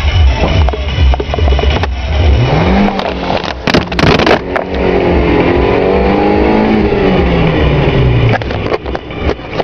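Engine of a Renault Clio Mk1 fitted with a swapped engine, heard from inside the cabin as the car accelerates. The engine note climbs about two seconds in, holds, then drops again near the end as the throttle eases. Sharp knocks and rattles come around four seconds in.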